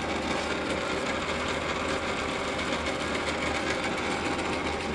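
South Bend Heavy 10 toolroom lathe running steadily under power, its gear train turning, with the half nuts engaged so the lead screw drives the carriage.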